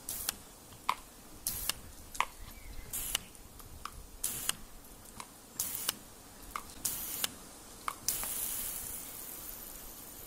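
Water spray from a garden sprinkler hissing in short bursts about every second and a half, then a longer hiss about eight seconds in as the spray passes close.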